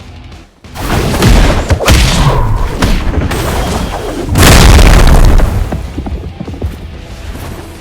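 Two loud booms with music underneath: one about a second in that rings on for a couple of seconds, and a louder one about halfway through that fades away.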